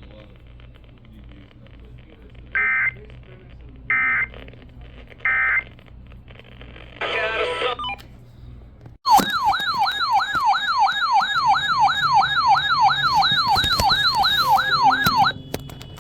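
Three short bursts of EAS digital data tones, each about a third of a second long and just over a second apart: the end-of-message signal that closes a weather radio alert. About nine seconds in, a loud electronic siren-like warble starts. It sweeps up and down two or three times a second and cuts off abruptly after about six seconds.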